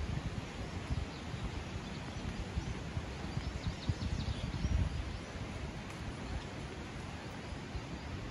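Outdoor park ambience: a steady hiss with an uneven low rumble, and a few faint bird chirps around three to four seconds in.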